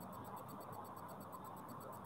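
Faint scratching of chalk on a blackboard as a word is written, over a steady low background hiss.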